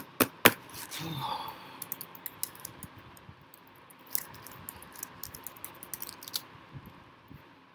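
Typing on a computer keyboard: a run of quick, irregular key clicks, a few louder ones at the start, stopping about six and a half seconds in.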